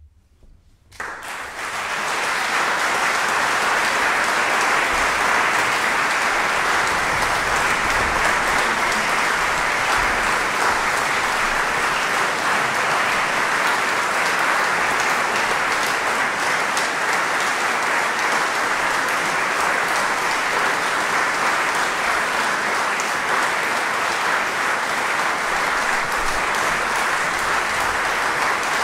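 Audience applauding: the clapping breaks out suddenly about a second in after a short quiet moment, then holds steady and dense.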